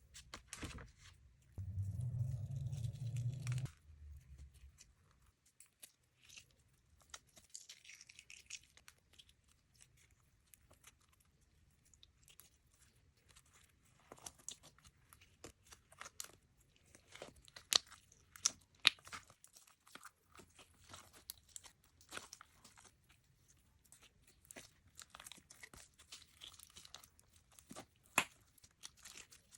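Clear slime being squeezed and pulled by hand, giving scattered sticky pops and crackles, with a few louder pops. A low rumble lasts about two seconds near the start.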